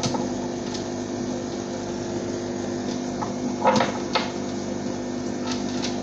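Steady mechanical hum of an aquarium pump, with a handful of light clicks and knocks, twice in quick succession midway, as stones and the net are moved about in the tank.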